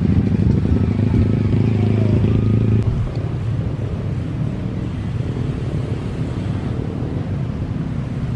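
Low, steady engine rumble from a nearby vehicle, easing down a little about three seconds in.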